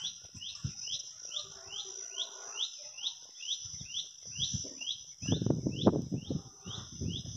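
A bird chirping over and over in an even rhythm, just under three short chirps a second, over a steady high hiss. A low rumble comes in about five seconds in and lasts a little over a second.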